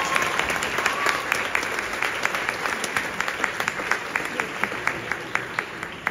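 Audience applause tapering off, thinning to a few scattered individual claps near the end.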